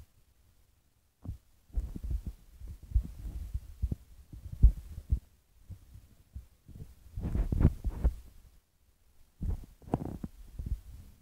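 Irregular low thumps and rumbling rubs in bursts with short pauses, the handling noise of a phone being gripped and moved against its microphone.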